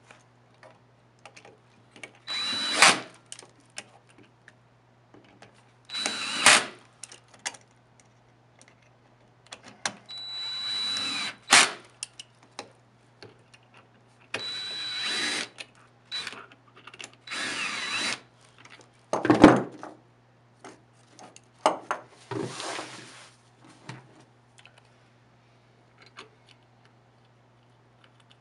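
Cordless screw gun with an 8 mm socket driving screws and nuts tight in about six short bursts, its motor whining during each run. Between the bursts come small clicks and one sharp knock a little past the middle.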